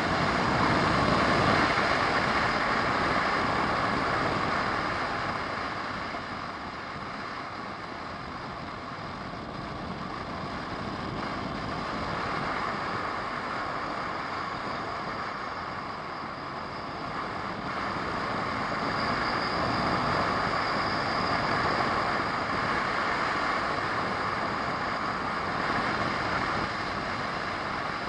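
A car driving on an asphalt road, heard from inside the cabin: a steady rush of tyre and engine noise that grows louder a couple of seconds in, eases off through the middle, and builds again past the middle.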